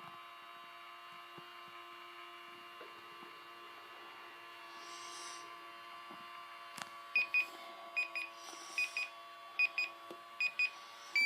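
Battery toy microwave running: a steady electronic hum of several held tones, then, from about seven seconds in, a string of short high beeps, roughly two a second, as the timer runs out. The hum cuts off near the end.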